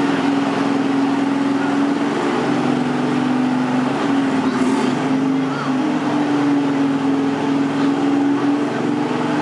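Riding lawn mower engine running hard under load while pulling a weight sled. Its pitch dips partway through and then climbs back up.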